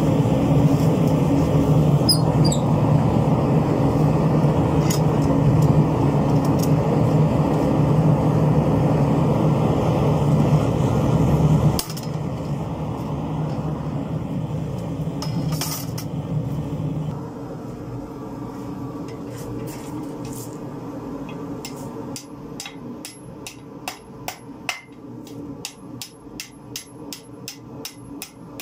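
Gas forge burner running with a steady low rush, which drops sharply about twelve seconds in and again about five seconds later. In the last few seconds, regular hammer strikes ring out at about three a second: steel being struck on an anvil.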